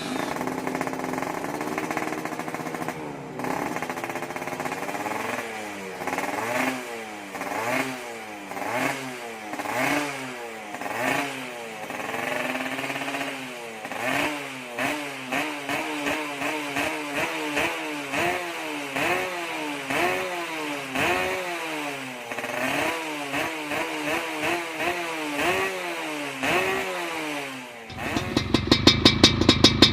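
Yamaha F1ZR two-stroke single-cylinder engine running through an aftermarket racing exhaust, revved again and again in short blips that rise and fall in pitch, quickening to one or two a second. Near the end it suddenly gives way to a louder, rapid, even pulsing.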